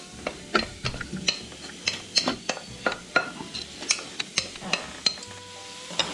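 Mushrooms frying in a pan of oil, stirred with a utensil that clicks and knocks against the pan about two or three times a second over a low sizzle, as they start cooking down for a duxelles.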